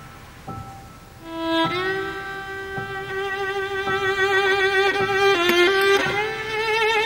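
Background score music: soft single notes struck about once a second, then a solo violin swells in about a second in, holding long notes with vibrato and moving to a higher note near the end.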